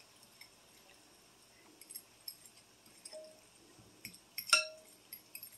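Metal fork stirring a wet mixture in a glass casserole dish, giving a few light clinks against the glass. The loudest is a ringing clink about four and a half seconds in.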